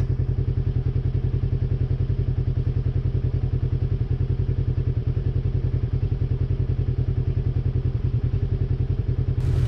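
Polaris RZR side-by-side's twin-cylinder engine idling steadily with an even, rapid pulse.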